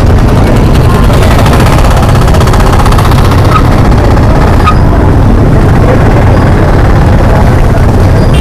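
Motorcycle engine running close to the microphone, a loud, steady, rapid pulsing.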